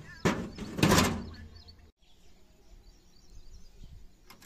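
Metal parts rattling and scraping as they are handled inside an electrical starter panel box, in two bursts over the first second or so. This is followed by faint background and a short click near the end.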